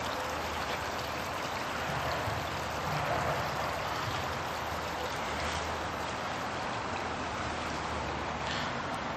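Small creek running, a steady rush of water.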